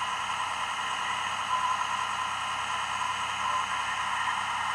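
Steady hiss with a faint hum, unchanging throughout, with no distinct events.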